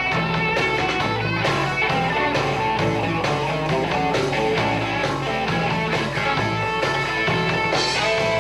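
Live rock band playing: electric guitar and electric bass over drums with a steady beat.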